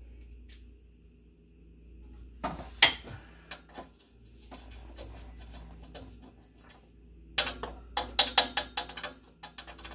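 Metal hand tools clinking against the truck's underside while parts are being taken off: a few sharp clanks about two and a half to four seconds in, then a quick run of sharp metallic clicks near the end.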